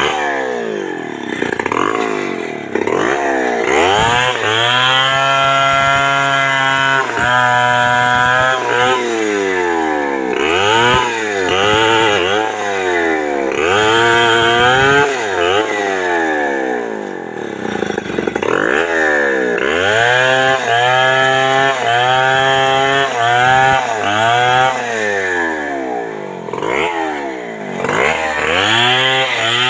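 Two-stroke chainsaw bucking the trunk of a felled bendo tree, revved repeatedly. It is held at high revs through the cuts and drops back toward idle between them.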